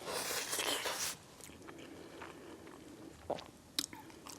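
Close-miked eating of chicken and waffles: a crunchy bite and chew for about the first second, then quieter chewing with a couple of small mouth clicks.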